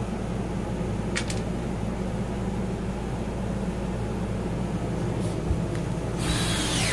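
A steady low mechanical hum runs throughout. There is a short high squeak about a second in, and near the end a brief harsh noisy burst with a falling whine.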